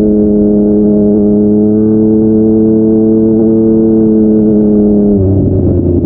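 Yamaha MT-09's inline three-cylinder engine running through a Yoshimura R55 slip-on exhaust, held at steady revs while riding. About five seconds in, the revs drop suddenly to a lower note.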